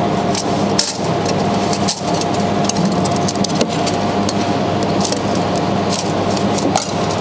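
Steady hum of running machinery, with scattered sharp clicks and light clatter as a welding wire feeder is handled.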